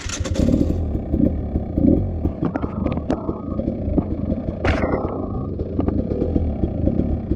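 Motorcycle engine running continuously while being ridden, with scattered knocks and rattles and a short loud burst of noise at the very start.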